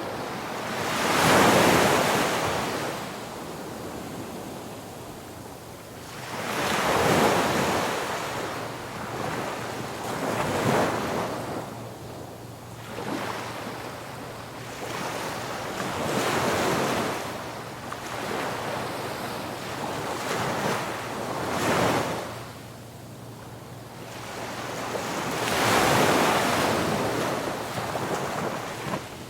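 Ocean waves breaking on a beach, each one swelling to a hissing crash and then washing back, about every four to six seconds.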